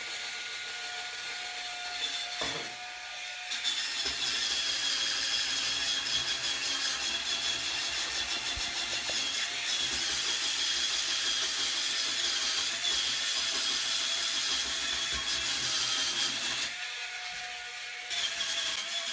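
Cordless electric spin brush with a flat brush head, its small motor whirring. A few seconds in it is pressed to the countertop and scrubs with a steady rasping whine, easing off briefly near the end.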